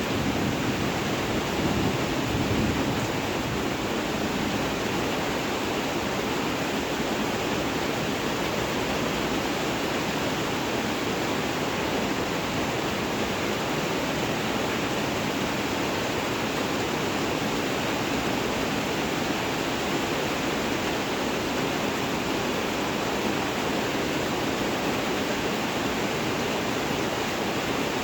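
Steady rain, an even hiss; a low thunder rumble dies away in the first few seconds.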